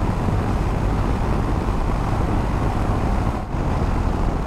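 BMW R1250GS motorcycle being ridden at about 80 km/h and easing off slightly: its boxer-twin engine under steady wind and road noise, with a short dip in level about three and a half seconds in.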